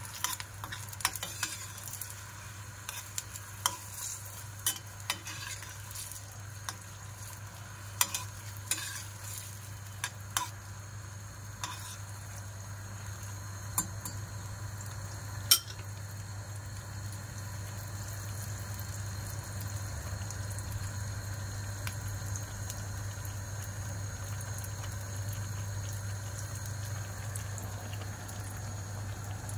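A metal spoon stirs chopped onions cooking in butter in a stainless steel pot and clinks against the pot many times in the first half, once quite sharply. Under the clinks the pan gives a steady sizzle that grows a little louder in the second half.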